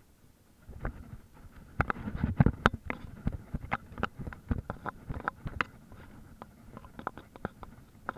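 A KTM off-road motorcycle jolting over a rough forest trail: rapid, irregular knocks and rattles from the bike, over a low rumble of wind and vibration on the camera. The knocks are heaviest a couple of seconds in.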